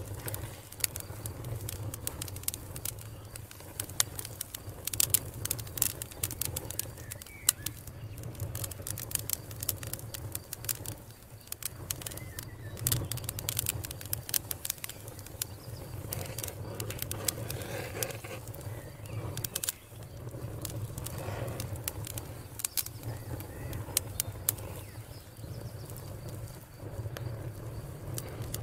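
Wood campfire crackling, with irregular sharp snaps and pops over a steady low rumble.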